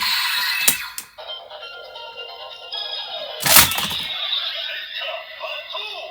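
Kamen Rider Saber DX toy's electronic sound effects as two Wonder Ride Books are slotted in together: a click and a burst of hissing noise, another click, a sharp crack about three and a half seconds in, then synthesized music playing.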